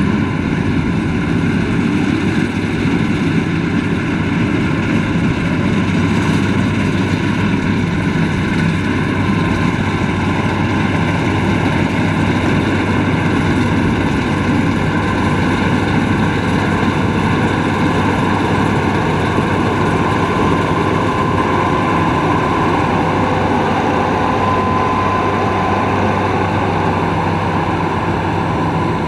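Rice combine harvester running steadily, its engine and threshing machinery giving a constant loud hum.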